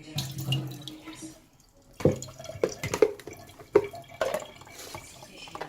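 Water spun out of washed molokhia leaves dripping and splashing from a salad spinner. From about two seconds in there are irregular drips and small knocks.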